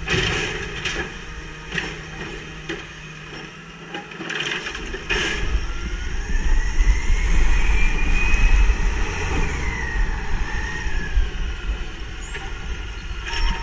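Natural-gas-powered automated side-loader garbage truck at work: a few sharp knocks in the first five seconds as the arm handles the cart, then the engine revs up with a whine that rises and falls as the truck pulls ahead.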